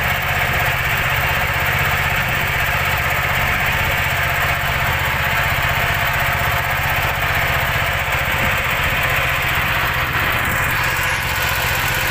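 Small fishing boat's engine running steadily at a constant speed while under way: an even, loud drone that does not change.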